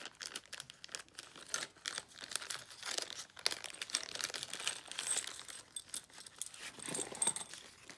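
Small clear plastic bag of metal alligator clips crinkling in irregular crackles as it is handled and worked open.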